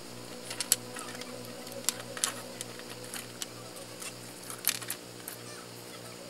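Light, irregular clicks and taps of wooden craft sticks and bamboo skewers being handled and set down on a wooden tabletop, over a faint low pulsing background.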